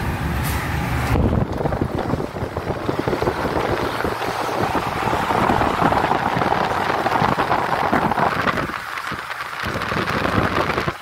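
Car driving at speed with the window open: steady road and wind rush with wind buffeting the microphone. It eases briefly near the end.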